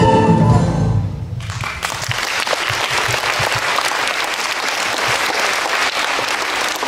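The last held note of a piece of music cuts off about a second in, and an audience breaks into steady applause for the rest.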